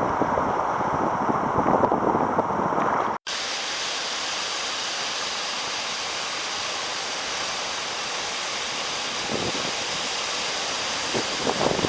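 Wind buffeting the microphone over rushing sea water, breaking off abruptly about three seconds in and giving way to a steady hiss of wind and water, with a few splashes near the end.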